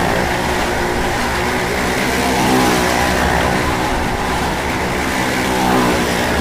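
Motorcycle engine running steadily as the bike rides round the vertical wooden wall of a well-of-death stunt pit, its pitch wavering slightly.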